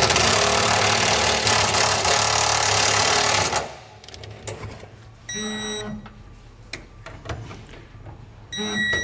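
Cordless impact wrench hammering a self-tapping screw into a steel truck frame rail for about three and a half seconds, then stopping suddenly. The screw is cutting its own new threads as it is snugged down. Two short whirs follow later.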